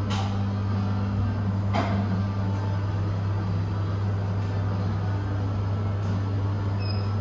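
Steady low mechanical hum, with two light clicks, one at the start and one about two seconds in.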